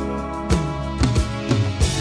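Background music: a pop song with sustained instrument notes and a steady drum beat striking about twice a second.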